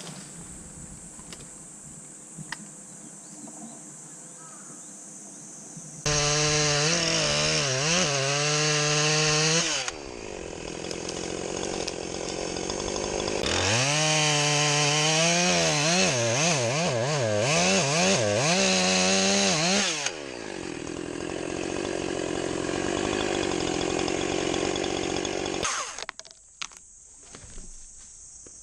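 Chainsaw revving under load through wood twice: a loud burst of about four seconds, a lull, then about six seconds more, its pitch wavering as it bogs in the cut. It then runs lower and cuts out near the end.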